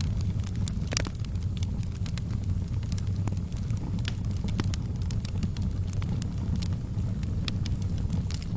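Wood fire in a fireplace crackling and popping: irregular sharp cracks, the loudest about a second in, over a steady low rumble.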